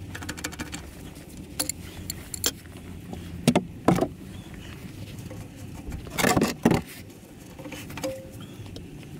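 Metal hand tools clicking and clinking on the digger's sump drain plug as a socket bar is worked to undo it, with a few sharp knocks about three and a half seconds in and a louder cluster of knocks just after six seconds.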